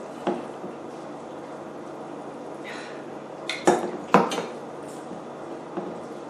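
Utensils clinking and knocking against a bowl while eating, a few scattered knocks, the two loudest close together a little past the middle, over a steady low hum.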